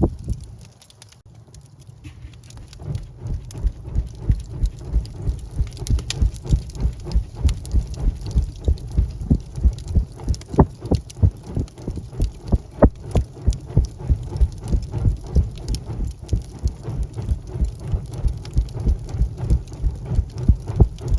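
Wood fire in a fireplace crackling and popping in a dense run of snaps. It dips quieter for a second or so near the start, then picks back up.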